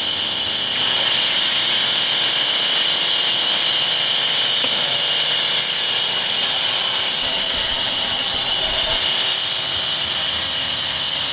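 A power tool running steadily with an even, high-pitched hiss.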